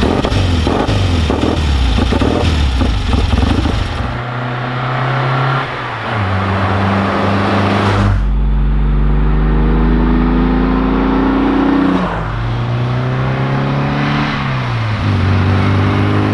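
Classic vehicle engines revving hard. After a rough burst of revving for the first few seconds, a car accelerates through the gears: its engine note climbs and drops sharply at each of three gear changes.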